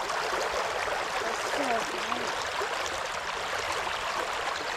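Fast-flowing creek water, a steady even rushing.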